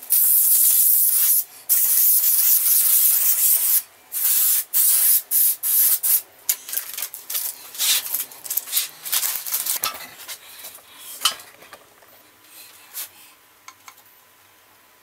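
Aerosol spray can hissing in two long bursts of about two seconds each, followed by a run of shorter spurts that grow sparser.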